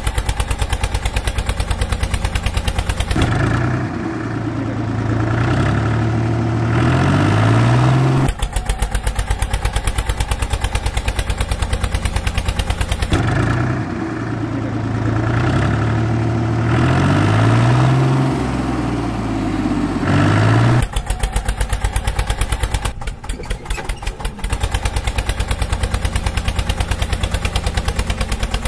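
Diesel tractor engine sound chugging at a fast, even beat. It twice revs up and down for several seconds, about three seconds in and again about thirteen seconds in. The identical passages repeat like a looped engine recording.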